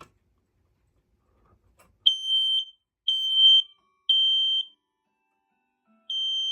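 Kidde i9040 ionization smoke alarm sounding its test alarm: three loud, high-pitched beeps about a second apart, a pause, then the next round begins. This is the temporal-three alarm pattern.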